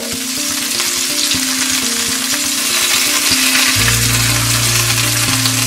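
Masala-coated mackerel sizzling steadily as it shallow-fries in hot coconut oil in a pan. Soft background music plays under it, with a low note coming in a little past halfway.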